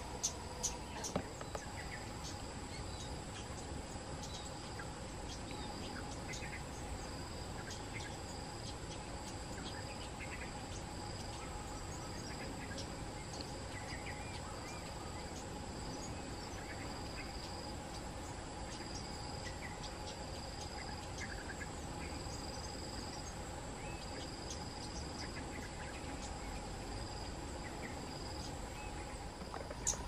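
Steady chorus of insects, with continuous high-pitched trilling tones, and a few sharp clicks in the first second or so.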